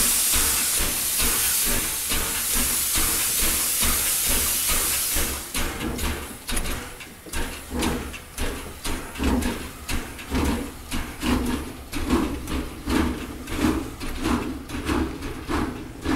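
Steam locomotive: a loud hiss of steam for about five seconds, then steady chuffs, about three every two seconds.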